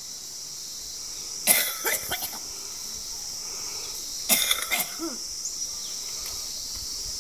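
A person coughs twice, about three seconds apart, over a steady high-pitched drone of insects.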